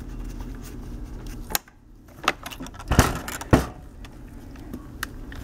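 Dell Latitude E6420 XFR rugged laptop being handled and turned over: about five knocks and clicks against its case, the two loudest about three and three and a half seconds in, over a steady low hum.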